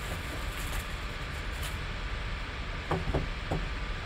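Plastic wrap crinkling as it is pulled off a cardboard trading-card box, followed about three seconds in by a few light taps of the box being handled, over a steady background hiss.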